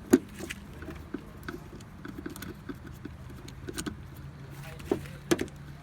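Phillips screwdriver backing out tail-light housing screws: sharp clicks and small metallic ticks of the driver and screws, a loud click just after the start and two more near the end, over a steady low hum.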